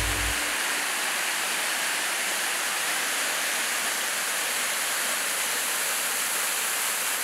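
Burkhan-Bulak mountain waterfall: a steady, unbroken rush of falling water crashing onto rock, heard close. The last of a low musical tone dies away in the first half second.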